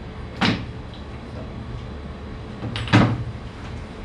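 Two sharp knocks, one about half a second in and the other near three seconds, over a steady low hum.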